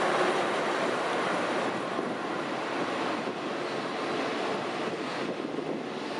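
A long-distance train rumbling past on the viaduct, its steady rolling rush slowly fading as it moves away, with wind buffeting the microphone.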